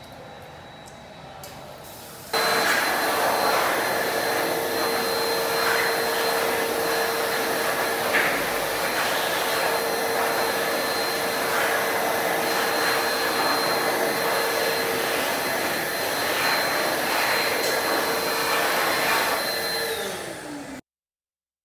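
Electric stainless-steel wall-mounted hand dryer switching on abruptly about two seconds in, blowing with a steady loud rush and a high whine, its motor starting to wind down near the end.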